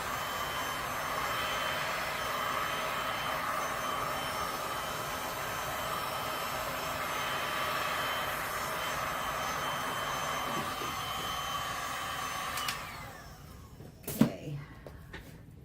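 Electric heat gun running steadily with a whining fan, switched off about 13 seconds in and spinning down with a falling whine. About a second later comes a single sharp knock.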